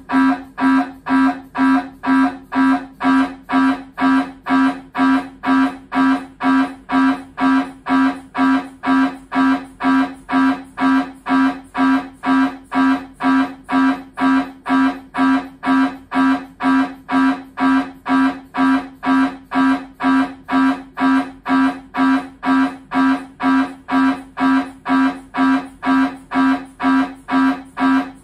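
Siemens Symphony Maestro Class 1.5 T MRI scanner running a scan sequence: its gradient coils give a loud, even train of identical pitched buzzing pulses, about two a second.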